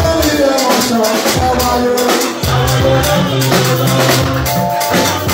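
Live dance band playing: drums keeping a steady beat under a moving bass line and melodic lines.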